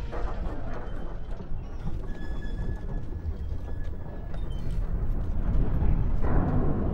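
Film sound mix of the giant iron Black Gate grinding open: a deep, continuous rumble under dark orchestral music, swelling louder about six seconds in.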